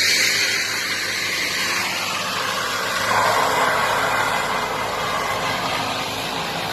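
Truck engine running steadily under a broad hiss of noise, swelling slightly about three seconds in.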